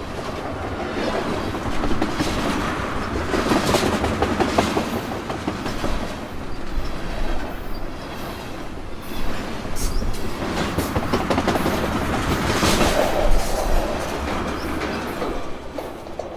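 Freight train passing: steel wheels clattering over rail joints with a continuous rumble of rolling cars, swelling louder twice.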